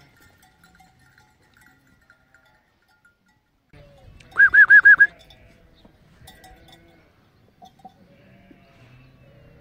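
A sheep bleating once about four seconds in, a short high quavering call of four or five quick pulses, with fainter bleats from the flock afterwards.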